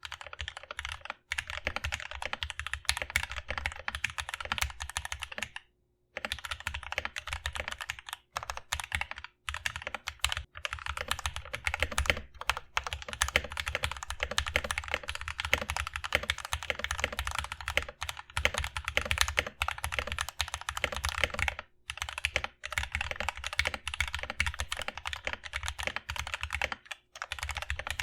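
Mechanical keyboard with linear switches in an aluminum plate, typed on quickly and continuously in dense clacks, with a few short breaks.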